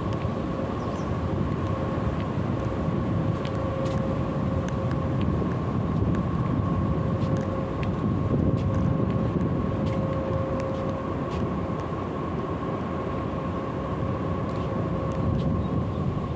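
Steady low rumble of city traffic, with a constant mechanical hum held at one pitch throughout.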